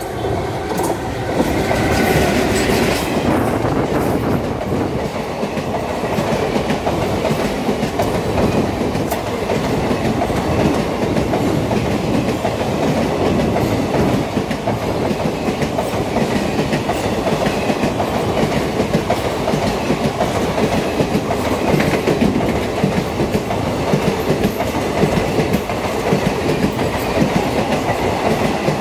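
Indian Railways WAG5 electric locomotive hauling a rake of empty passenger coaches past at speed. The locomotive goes by near the start, then the coaches' wheels clatter steadily over the rail joints.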